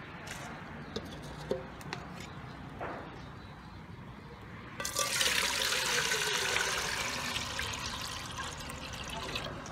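Water poured from a plastic container into a large, empty aluminium cooking pot, starting about five seconds in and running for several seconds, the splashing tone shifting as the pot fills. A few light knocks come before it.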